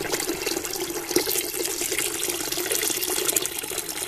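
Steady stream of water pouring from the spout of a Coleman Hot Water On Demand propane water heater into a bucket, splashing continuously.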